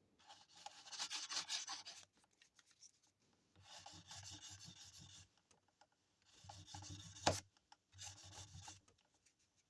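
Emery stick sanding the side of a sterling silver ring by hand, in four scratchy strokes with short pauses between, taking the solder seam down flush. There is a sharp tap about seven seconds in.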